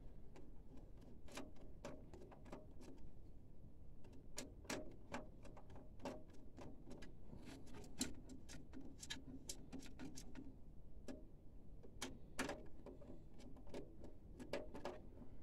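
Faint, irregular clicking and ticking of a screwdriver working screws out of a printer's sheet-metal carrier cover, a few clicks a second.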